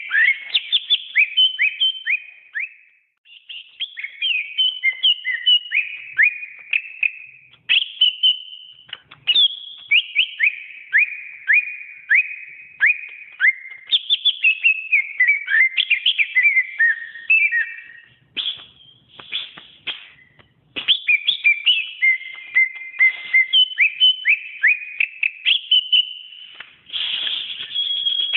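Cucak ijo (green leafbird) singing: long, varied phrases of loud, rapid whistled notes that slide quickly up and down, broken by short pauses.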